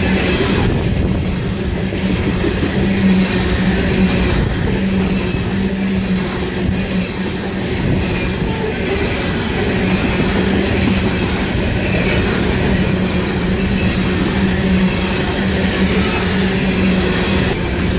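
Loaded freight hopper cars rolling past at speed, steel wheels rumbling on the rails with a steady low hum underneath.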